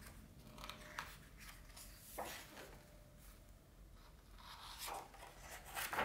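Pages of a hardcover art book being handled and turned. There are several soft paper rustles, then a louder swish near the end as a page flips over.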